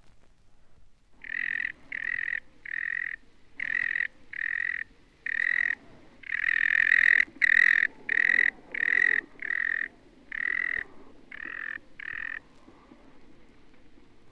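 Sanderling calling: a series of short, sharp calls repeated about once or twice a second, stopping about twelve seconds in.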